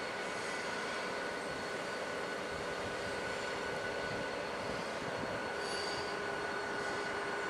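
Intermodal freight train's cars rolling past: a steady rumble of steel wheels on rail with a thin, steady high-pitched wheel squeal running through it.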